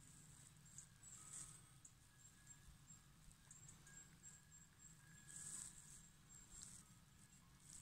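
Near silence with faint, high-pitched insect chirping in short repeated pulses, over a low steady background hiss.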